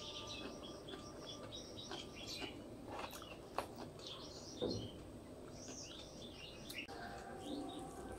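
Soft wet clicks and squelches of fingers mixing basmati rice into egg curry gravy, with a few sharper clicks about the middle, over birds chirping steadily in the background.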